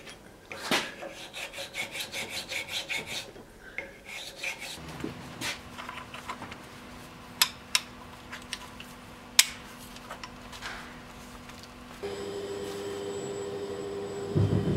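Hand file rasping across a wooden knife-handle block clamped in a vise, in quick even back-and-forth strokes that stop about four seconds in. After that come a few light sharp clicks and taps over a low steady hum.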